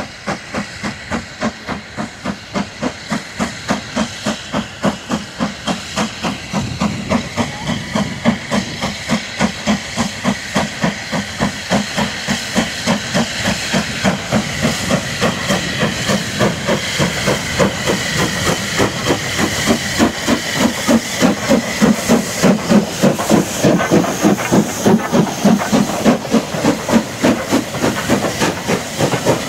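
SR Q class 0-6-0 steam locomotive working a train, its exhaust beats coming in a steady rhythm of about three a second over a constant hiss of steam. The beats grow louder as the engine approaches and passes close by.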